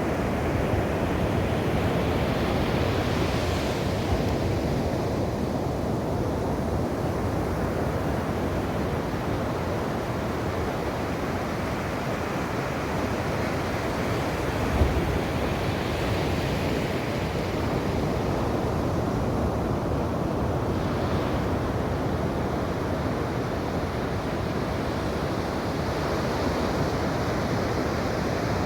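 Ocean waves breaking and washing up on a shore in a continuous surging wash, with a hiss that swells with each breaker. A single short low thump sounds about halfway through.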